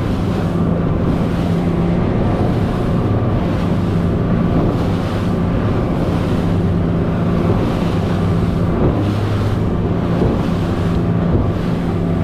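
A Shearwater boat's outboard motor running steadily at speed, with the hull and spray hissing through choppy water and wind on the microphone.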